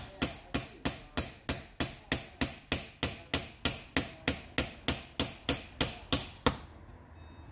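Hammer tapping on a block of wood held on top of a blower motor's squirrel-cage fan wheel, driving the wheel down onto the motor shaft. Steady, even taps about three a second, stopping shortly before the end.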